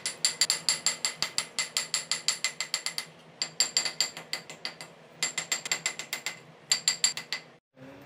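Rapid ratchet-like mechanical clicking, about eight sharp clicks a second, in four runs broken by short pauses.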